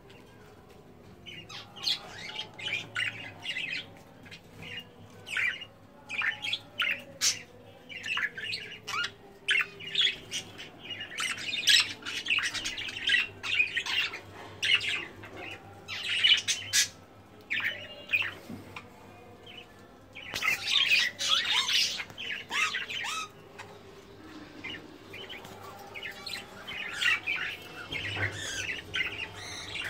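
Caged budgerigars chirping and squawking: a steady stream of short, quick high chirps, thickening into busier chatter several times.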